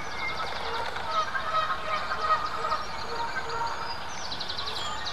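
Several birds singing and calling at once, with quick repeated high trills.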